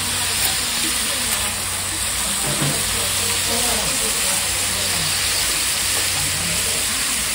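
Beef offal and marbled beef sizzling in fat on a flat iron teppan griddle: a steady frying hiss. A metal spatula ticks against the iron a couple of times in the first second and a half.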